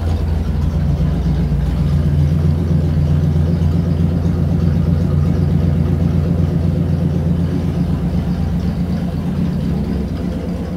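Chevrolet 327 small-block V8 idling steadily on an engine dyno at roughly 850 to 890 RPM.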